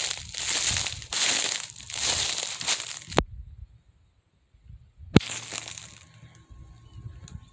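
Footsteps crunching through dry leaf litter at a steady walking pace. About three seconds in they cut off with a sharp click into two seconds of dead silence. A second click follows, then a few fainter crunches.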